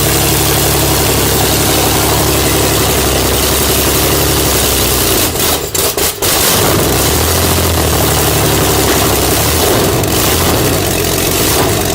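An engine running loud and steady, with a strong low hum. About five and a half seconds in, the sound drops out sharply two or three times, then carries on running.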